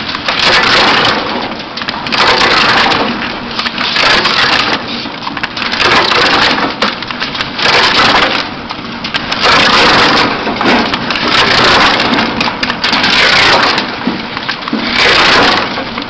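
Homemade firewood machine's rotating drum cutter chopping a log into split firewood: wood crunching and splintering in repeated bursts, about one every second and a half.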